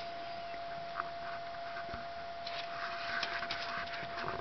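Small dog panting quietly, worn out after hard play; the panting grows denser and louder about halfway in.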